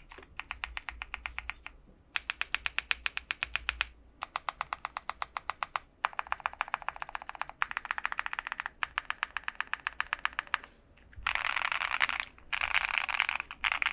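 Typing on a Monsgeek M3 TKL mechanical keyboard with Akko Crystal Silver switches, lubed with 205g0 and tape-modded, which gives a full sound. Runs of keystrokes at about ten strokes a second are broken by short pauses, and near the end they turn to fast, near-continuous typing.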